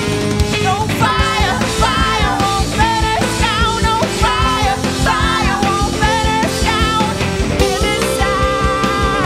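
Live rock band playing: a drum kit keeping a steady beat under electric guitar, with a singer's voice over the top.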